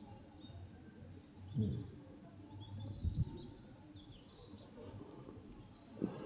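Quiet ambience with faint birds chirping, and a few soft low thuds, about a second and a half and three seconds in and again near the end.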